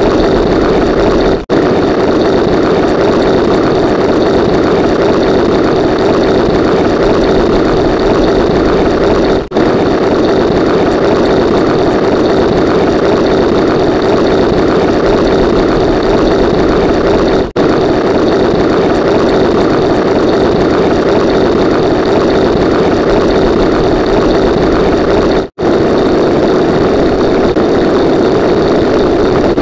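A loud, steady engine-like drone, a sound-effect clip looping about every eight seconds with a brief gap between repeats.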